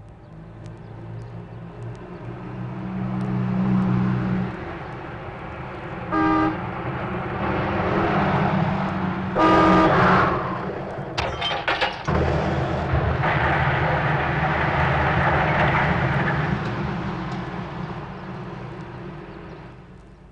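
Motor vehicle engine running, swelling and easing, with a short horn toot about six seconds in and a louder, longer horn blast near ten seconds; a few sharp clicks follow and the engine note changes abruptly before it fades out near the end.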